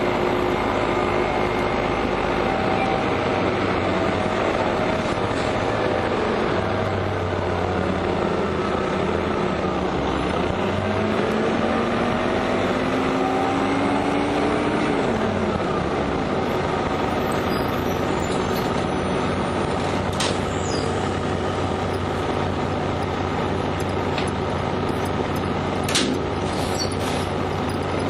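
Orion 05.501 diesel transit bus running, with steady engine and road noise. Its pitch rises for several seconds and then drops about halfway through, as at a gear change. A few short sharp clicks or hisses come near the end.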